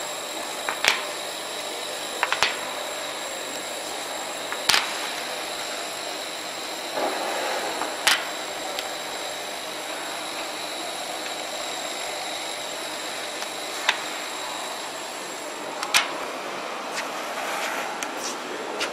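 Small clear acrylic blocks clicking and tapping against each other and the table as they are handled, six or so sharp clicks spread through, over a steady machine-room hiss with a faint high whine.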